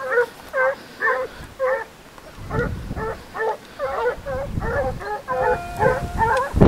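A pack of sabueso-type scent hounds baying on a trail, barking rapidly at about two to three barks a second. The barking thickens and grows louder from about two and a half seconds in as more dogs give tongue together.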